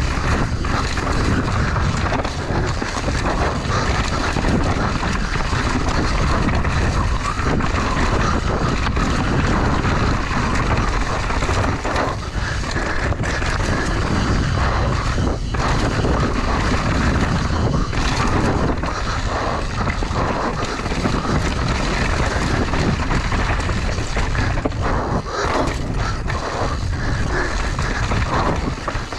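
Mountain bike ridden fast downhill over dirt and rocks: tyres rolling and the bike rattling, with many irregular knocks from hits on rocks and roots, under wind rushing over the action-camera microphone.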